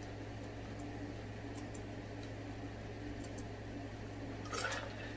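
A man drinking in long draws from a large glass jar, with faint swallowing over a steady low electrical hum. A short louder sound comes near the end.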